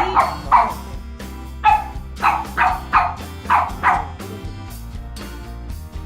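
A dog barking in short, sharp barks, about eight in quick succession over the first four seconds, with background music playing throughout.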